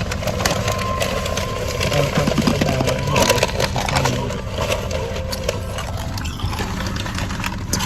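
A vehicle engine idling steadily, with scattered light knocks and handling noises over it.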